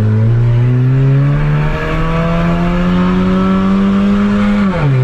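Honda Civic 2.0 four-cylinder engine running through a wide-open exhaust cutout, its revs climbing steadily under acceleration for about four and a half seconds. Near the end the revs drop sharply, as at a gear change.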